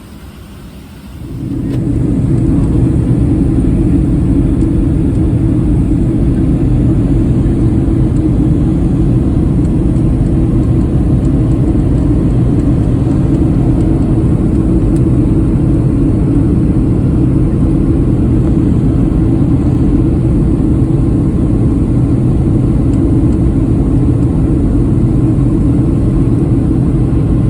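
Airliner engines heard from inside the cabin: a loud, steady drone that swells up over about a second near the start and then holds level, as on a takeoff run.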